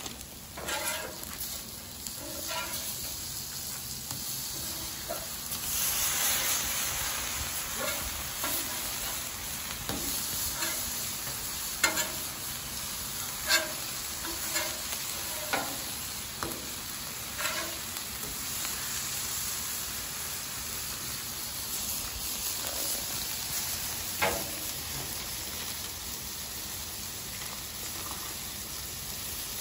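Venison burger patties sizzling steadily on a Blackstone flat-top griddle. A metal spatula scrapes and taps on the steel cooking surface every so often, in sharp clicks.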